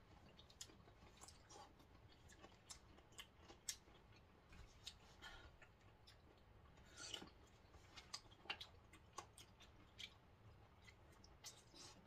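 Faint eating sounds: metal forks clicking now and then against glass plates, and the chewing of cut mango and orange pieces, as scattered soft clicks with a small cluster about seven seconds in.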